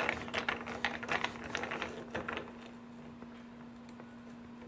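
A quick run of light clicks and taps that thins out about halfway through, over a faint steady hum.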